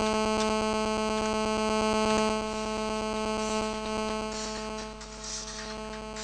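Mobile-phone radio interference picked up by the PC microphone: a loud, steady electrical buzz at one fixed pitch with many overtones. It is the sign of a GSM phone beside the microphone taking an incoming call.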